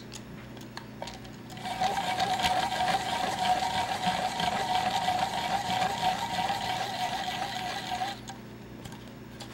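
El Casco Model 430 hand-crank pencil sharpener being cranked, its cutter shaving a pencil to a normal point: a steady whirring grind with one held tone, starting about a second and a half in and stopping about a second before the end. A few light clicks of handling come before it.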